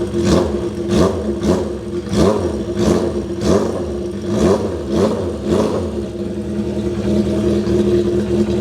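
Honda CB400Four's air-cooled inline-four engine running through a Yoshimura short exhaust with its baffle core removed, so it is effectively a straight pipe. The throttle is blipped repeatedly for about the first six seconds, then the engine settles to a steady idle.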